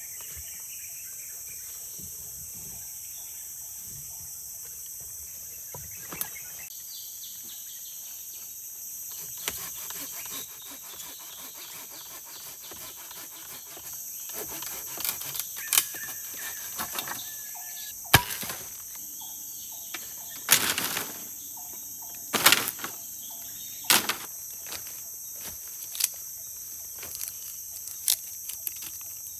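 Tropical forest insects droning steadily at a high pitch. From about halfway through, sharp knocks come about every one to two seconds, louder than the drone.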